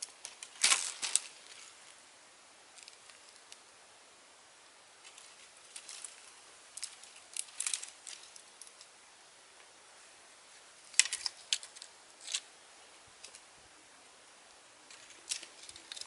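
Dry branches and twigs clicking and rustling as they are handled and propped against a stick-frame shelter, in short spells a few seconds apart, loudest about a second in and again about eleven seconds in.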